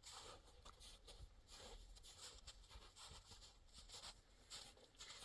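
Near silence, with faint, irregular rustling.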